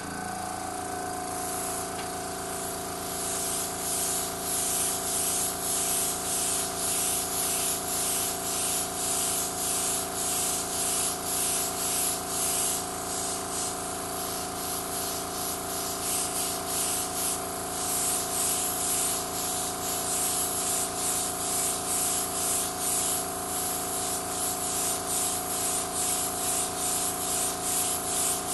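Airbrush compressor starting abruptly and running with a steady hum, while the airbrush sprays colour with a hiss that pulses rhythmically as the trigger is worked.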